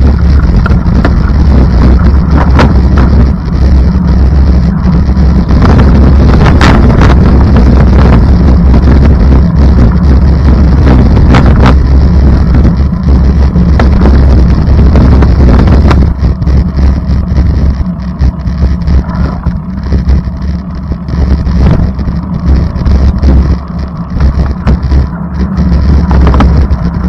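Low, steady rumble of a vehicle in motion heard from inside, with some wind buffeting on the microphone. About sixteen seconds in it eases and becomes more uneven.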